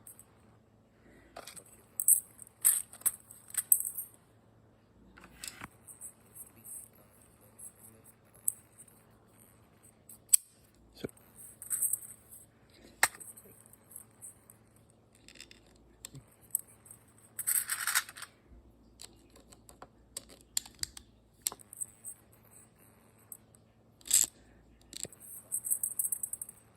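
Handling noise of small hard objects: scattered sharp clicks and short rattles, with a longer scraping rasp about 18 seconds in.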